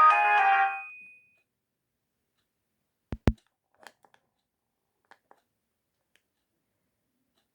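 Polyphonic ringtone from a Sony Ericsson K320i mobile phone playing its last notes and cutting off within the first second. After a silence, two sharp clicks come close together about three seconds in, followed by a few faint clicks.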